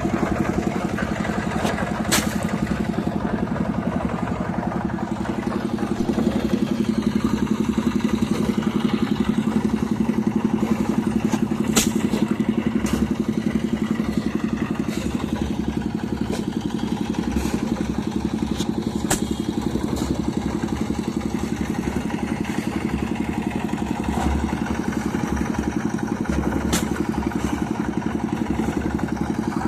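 An engine running steadily at a constant speed, with a few sharp clanks spread through it.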